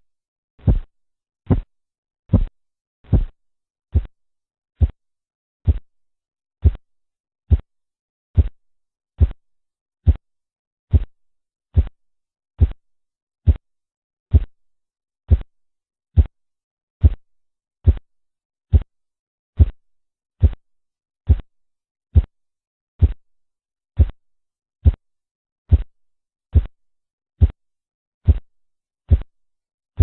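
Korotkoff sounds through a stethoscope as the blood-pressure cuff deflates: short, low thudding taps, one per pulse beat, evenly spaced at a little over one per second (about 68 a minute) and steady in loudness.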